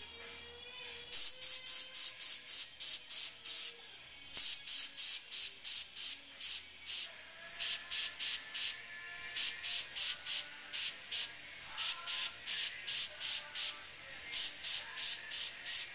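Airbrush spraying black paint in short quick puffs, about three or four a second, in runs of several with brief pauses between: one puff per rivet as a small shadow is laid beneath each.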